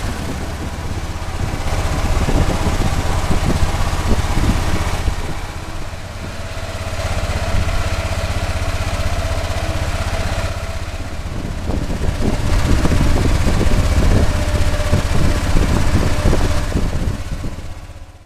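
Small deck-mounted engine of an outrigger fishing boat running steadily under way, a dense low pulsing with a rushing hiss over it. Its loudness swells and eases a few times, then falls away near the end.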